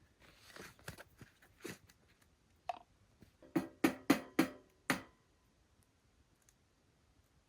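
Soft rustling, then five sharp taps about a third of a second apart, each with a short ringing tone, as from something hard knocked against a pot or pan.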